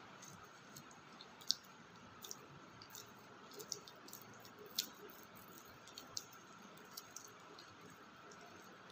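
Crumbly soil crunching and crackling under the hands as it is scooped up and pressed into a ball on a wooden board, with scattered sharp irregular clicks, the loudest about a second and a half in and near five seconds in.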